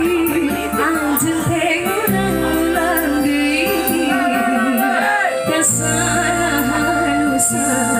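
Live dangdut band: a woman singing a wavering melody into a microphone over electronic keyboard, bass and drums, with steady cymbal ticks, amplified through PA speakers.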